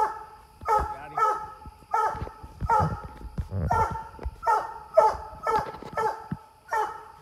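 Coonhound barking steadily at the tree, about two barks a second: a treeing bark, the sign the hound has a raccoon treed.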